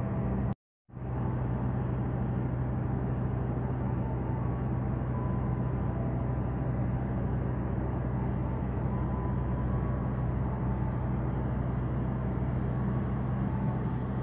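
Diesel engines of a locomotive-hauled passenger train running with a steady, even drone. The sound cuts out completely for a fraction of a second, a little under a second in.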